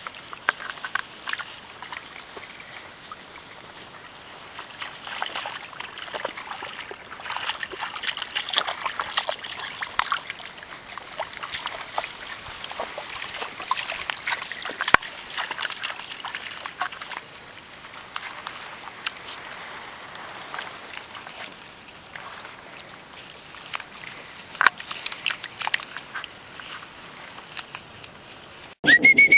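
English Springer spaniel puppies splashing and wading in a shallow trickle of water among wet grass: many small scattered splashes and rustles over the running water. Near the end a single steady, high whistle note starts.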